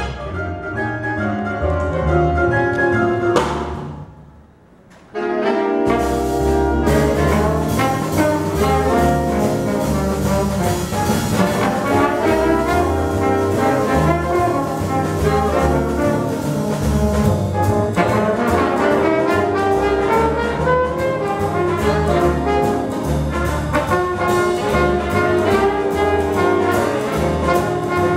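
Jazz big band playing: saxophone section, trumpets and trombones over piano, bass and drums. About four seconds in the band stops for roughly a second and a half, then comes back in together and keeps playing at full volume.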